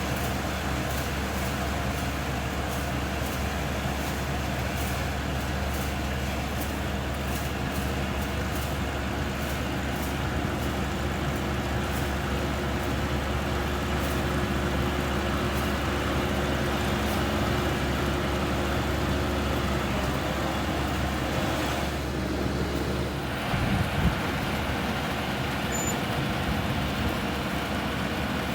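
Rice combine harvester running steadily, its engine and threshing machinery making a continuous mechanical drone. A few seconds before the end the sound briefly changes, with a short thump.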